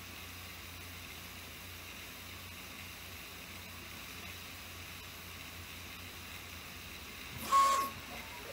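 3D printer running: a steady fan hiss and low hum, then about seven and a half seconds in a short, loud stepper-motor whine that rises in pitch as the print head makes a quick move.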